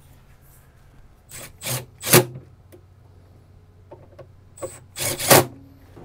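Handling noises on a stainless refrigerator door and its hardware: some rubbing and a few sharp knocks and clacks, loudest about two seconds in and again near the end.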